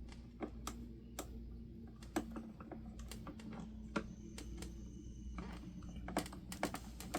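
Irregular light plastic clicks and taps from handling a Honeywell HT-900 fan's plastic guard and parts during disassembly, about a dozen scattered through, over a faint steady low hum.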